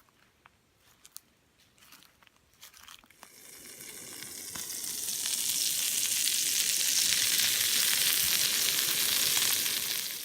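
A few light clicks, then a loud, high, steady hiss that swells up over about two seconds and holds until it cuts off suddenly at the end.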